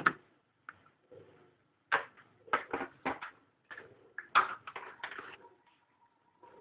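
Repeated sharp knocks and clatter of hard objects being handled, in clusters. A faint steady tone starts about five seconds in, and a dove coos faintly in the background.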